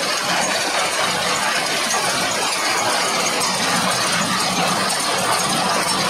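Fendt 720 Vario tractor running steadily while it drives a Kayhan Ertugrul KE520 small square baler baling hay, with metallic clinking and rattling from the baler's working parts.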